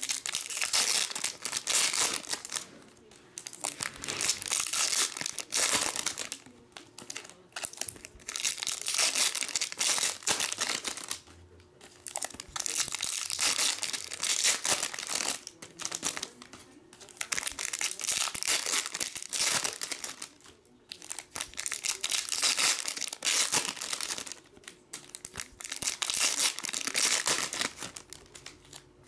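Foil wrappers of 2015 Bowman Chrome baseball card packs being torn open and crinkled by hand, in repeated bursts of rustling a second or two long with short pauses between.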